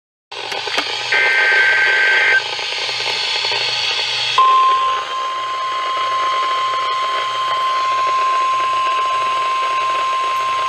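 NOAA Weather Radio broadcast heard through a receiver with a constant static hiss. About a second in there is a short burst of two-pitch data tones, the SAME alert header. At about four seconds the steady 1050 Hz warning alarm tone starts and holds, announcing a severe thunderstorm warning.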